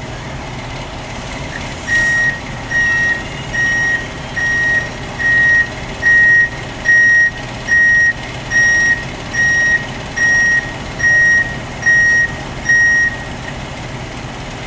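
Heavy vehicle's back-up alarm beeping about once every 0.8 seconds, around fourteen high beeps starting about two seconds in and stopping near the end, over the steady low rumble of a diesel engine running.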